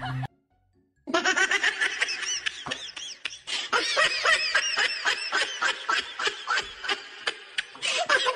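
Background music with a quick clicking beat, mixed with snickering laughter. It starts about a second in, after a short gap of near silence.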